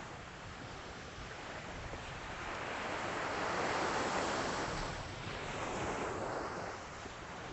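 Calm Atlantic surf washing up on the beach: a soft rush of waves that builds to a peak a few seconds in and then eases off.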